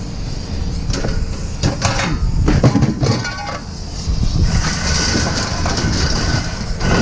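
Steady low rumble of heavy machinery with several scattered metal clanks and knocks.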